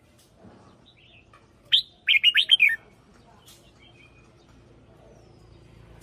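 Caged red-whiskered bulbul singing one short, loud phrase a little under two seconds in: a sharp single note, then a quick run of about six notes lasting under a second.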